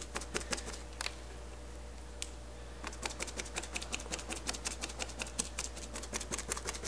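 Paintbrush stippling resin into fiberglass mat: a quick run of short dabbing taps, a pause of about two seconds, then steady dabs at about three to four a second, over a steady low hum.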